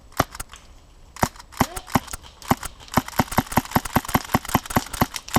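Suppressed Novritsch SSX23 gas airsoft pistol firing: two sharp pops just after the start, then a fast string of semi-auto shots, about four or five a second, from about a second in. The pistol is being used to spray BBs at opponents.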